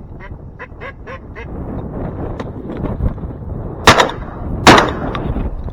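A quick run of duck quacks in the first second and a half, then two shotgun shots under a second apart, over wind buffeting the microphone.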